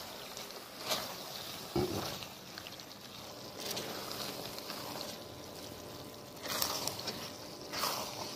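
Silicone spatula stirring and tossing macaroni in a black kadhai, with a handful of louder scrapes against the pan over a steady low sizzle of the food frying.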